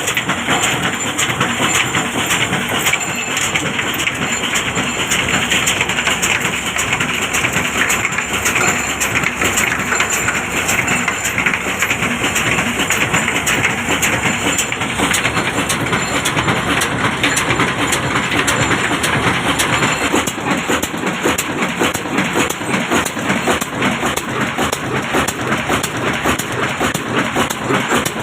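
Old diesel engine running steadily as it drives a stone flour mill, with a dense, fast clatter throughout.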